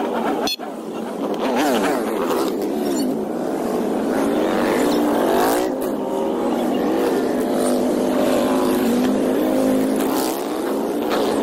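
A procession of cruiser motorcycles riding past one after another, several engines overlapping, their pitch rising and falling as the riders accelerate and ease off. There is a brief break in the sound about half a second in.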